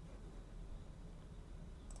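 Quiet room tone with a steady low hum, a pause between bursts of computer-keyboard typing; a faint key click or two near the end.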